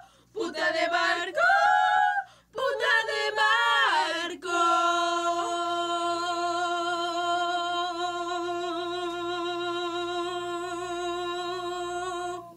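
An unaccompanied singing voice: two short sung phrases, then one long held note of about eight seconds that ends abruptly near the end.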